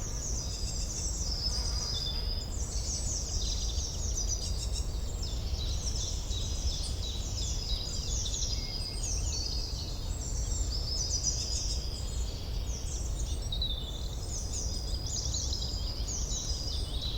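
Forest birdsong: many small birds chirping and singing at once, short high-pitched repeated phrases overlapping without a break, over a steady low rumble.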